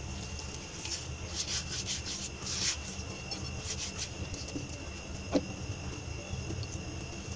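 Hands rolling a sheet of paratha dough into a log on a countertop: a run of soft rubbing, swishing strokes for the first few seconds, then a single sharp tap a little past the middle. A steady low hum and a faint high whine sit underneath.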